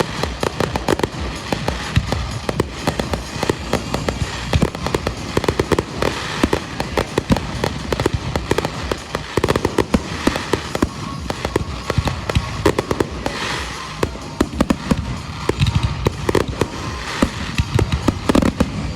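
Fireworks finale: a dense, unbroken run of rapid bangs and crackling from many shells bursting at once, with music underneath.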